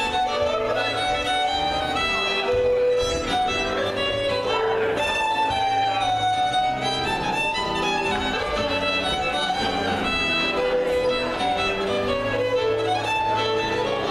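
Live fiddle playing a contra dance tune over keyboard accompaniment, the melody moving note to note over a steady beat.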